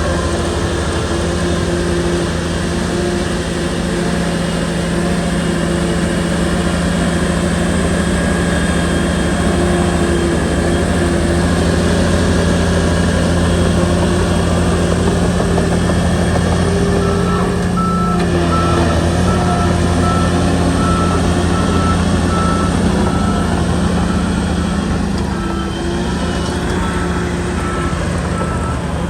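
Shantui bulldozer's diesel engine running steadily. About two-thirds of the way in, a reversing alarm starts beeping at a regular pace, the sign that the machine is backing up.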